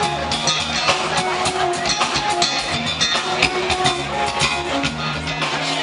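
Background music with guitar and drums and a steady beat.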